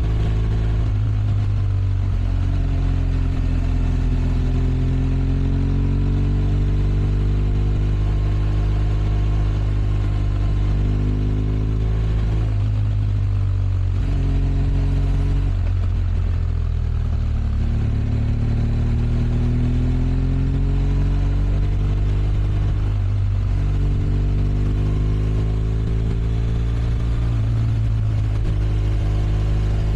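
BMW R1200 RS's boxer flat-twin engine on its stock exhaust, running steadily under load. Its note climbs slowly over several seconds and then drops back, several times over.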